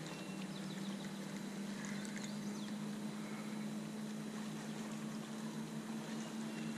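Electric trolling motor humming steadily as the boat creeps along, over a light hiss of wind and water.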